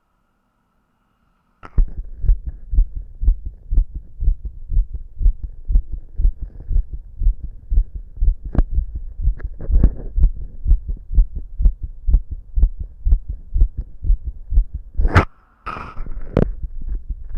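Fast human heartbeat heard through a stethoscope-style chest microphone: rapid, regular low thumps that start about a second and a half in. Near the end a few loud scraping knocks of handling noise break in, with a brief gap, then the beat carries on.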